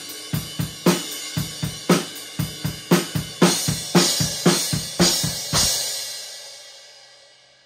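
Acoustic drum kit played with sticks to a steady beat of kick, snare and cymbals, ending on a final crash a little before six seconds in that rings out and fades away.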